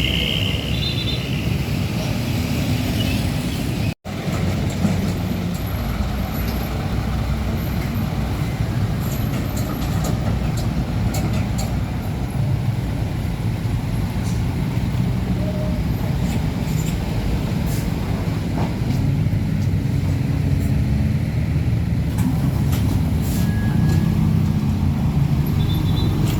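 Heavy diesel trucks running along a road: a steady low engine drone with road and traffic noise. The sound cuts out for an instant about four seconds in.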